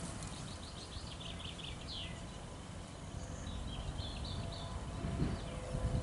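Small songbirds singing: a quick run of about ten repeated high notes ending in a downward flourish, then a shorter high phrase about a second later. Under it runs a steady low rumble that swells a little near the end.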